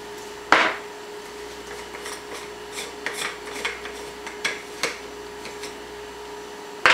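Handling noise from a homemade black plastic-pipe potato gun being gripped and adjusted in the hands: a sharp knock about half a second in, a run of light clicks and scrapes, and another knock at the very end. A faint steady hum runs underneath.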